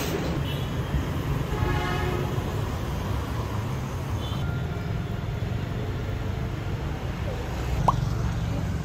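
Steady low rumble of a vehicle in motion, with faint voices and a short rising squeak near the end.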